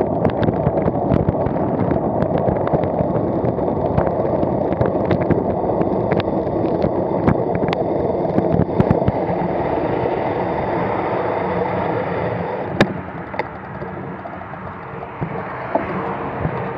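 Wind buffeting the microphone and road rumble from a vehicle moving along an asphalt road, with many small sharp rattling clicks. The noise eases off about three-quarters of the way through as the speed drops.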